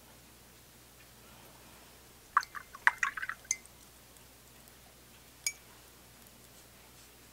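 A paintbrush being rinsed in a glass jar of water. It clinks against the glass in a quick cluster of taps about two and a half seconds in, then gives a single ringing tap on the glass about five and a half seconds in.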